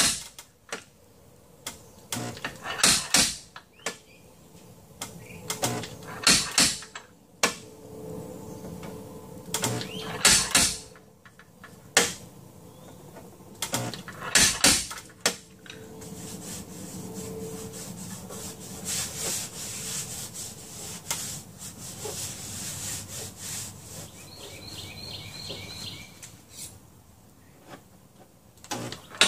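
MIG welder stitch-welding the sheet steel of a car's centre post and rocker. It makes short bursts of crackling arc, each under a second and three to four seconds apart, then longer, steadier crackling in the second half.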